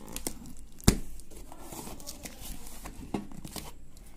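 Double-edged razor blade slicing along packing tape on a cardboard box: scratchy tearing and rustling, with a sharp tap about a second in.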